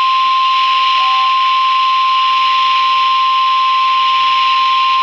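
Emergency Alert System warning tone relayed over radio: one steady, unbroken single-pitch tone with a hiss of static under it, the signal that a National Weather Service severe thunderstorm warning follows.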